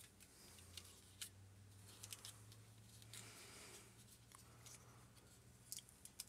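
Near silence with a few faint clicks from a small plastic toy briefcase being handled and opened in the hands, two of them close together near the end. A low steady hum runs underneath.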